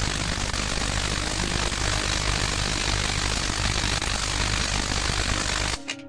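Spark-gap Tesla coil powered by two microwave oven transformers firing: a loud, steady, harsh buzz from the spark gap and the arcs, with a low hum underneath. It cuts off suddenly near the end.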